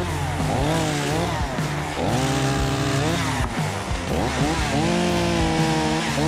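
Two-stroke chainsaw running at high revs, its pitch rising and dipping repeatedly as it is throttled and loaded.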